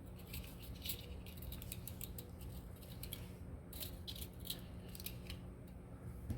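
Scattered small, sharp clicks and light clinks of small metal jewelry parts and tools being handled, over a low steady hum.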